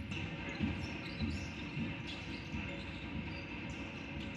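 Basketball dribbled on a hardwood court, a bounce about every half second for the first couple of seconds, over the steady noise of the arena crowd.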